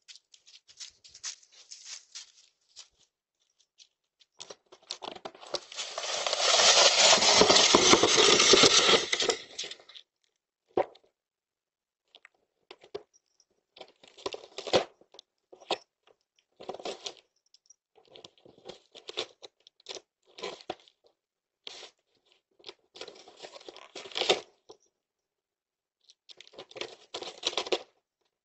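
Irregular bursts of cardboard tearing and crinkling as a dog rips at a delivery box. A louder, fuller stretch of noise lasts about five seconds, starting some four seconds in.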